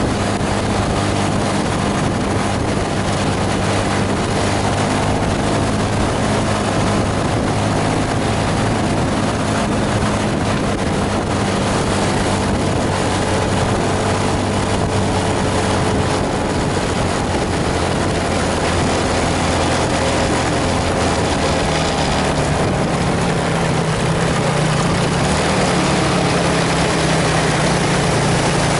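Heavy diesel bus engine running steadily under load, a low drone over a steady hiss; the engine note shifts about halfway through and again a few seconds later.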